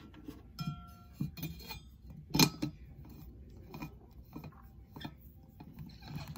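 Stainless steel lid of an insulated bottle being gripped and twisted: a string of small metallic clinks and taps, some with a short ringing tone, the loudest knock about two and a half seconds in.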